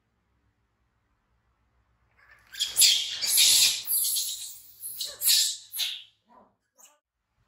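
Baby macaque screaming in fright: a run of shrill, high-pitched screams starting about two and a half seconds in and ending around six seconds, then two short faint squeaks.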